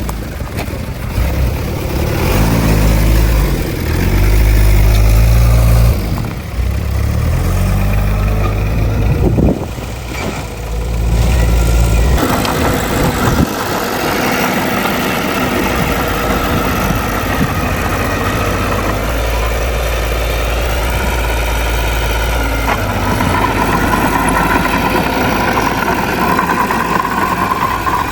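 Heavy diesel engines of earthmoving machines working, a bulldozer and dump trucks. For the first twelve seconds or so the engine note rises and falls in steps as the load changes; after that it runs more steadily.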